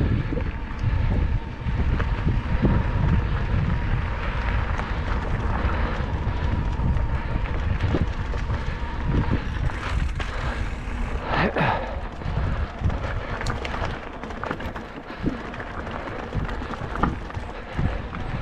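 Mountain bike ride on a dirt trail: heavy wind rumble on the microphone over tyre noise, with frequent short clicks and rattles from the bike over bumps. A brief pitched, wavering sound comes about eleven seconds in.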